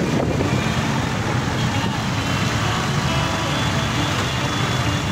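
Steady road traffic noise: vehicle engines running and passing, with people's voices mixed in.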